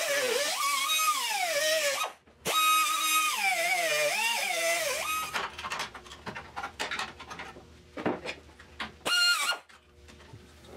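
Air-powered cut-off wheel slicing through the rusted steel of a Triumph TR6 chassis frame to cut out rot: a high whine that sags in pitch as the disc bites and climbs again as it frees up. It runs as two cuts with a short break about two seconds in. A run of sharp clicks and knocks follows, then a brief burst of the tool spinning freely near the end.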